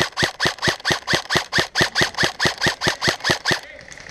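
Airsoft gun firing a steady string of shots, about five a second, that stops about three and a half seconds in.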